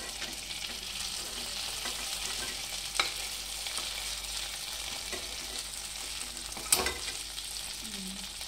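Marinated chicken drumsticks sizzling in hot oil and butter in a non-stick kadhai, a steady hiss, as they are turned with a metal spatula. The spatula knocks against the pan twice, about three seconds in and more loudly near seven seconds.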